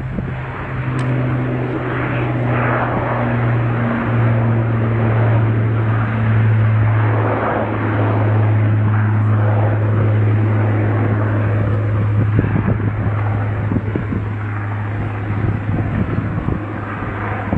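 Jet engines of an Airbus A350 airliner (Rolls-Royce Trent XWB turbofans) running loud during a flypast. A steady low hum that steps slightly down in pitch twice sits over a continuous rushing roar.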